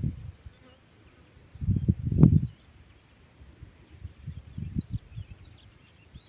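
Steady high-pitched insect buzzing in open farmland, broken by a loud low rumbling burst about two seconds in and a weaker one near five seconds. Faint bird chirps come near the end.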